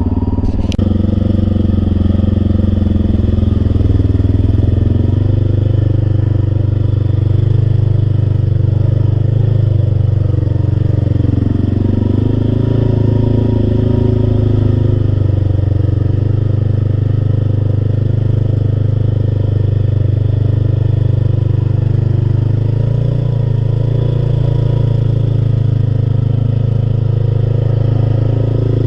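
Large vehicle engine running at a steady speed, a deep, even drone with no big revs.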